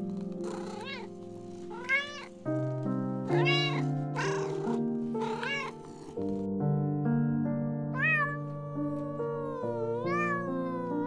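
Domestic cat meowing: a series of short meows, then two longer, drawn-out meows that fall in pitch near the end, over soft background music.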